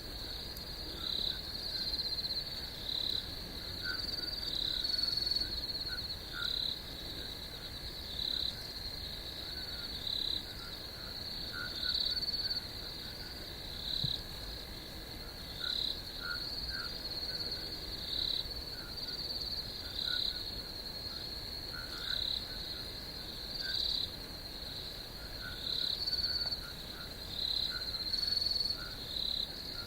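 Night ambience of frogs and crickets: a steady high insect trill, with short calls repeating about once a second.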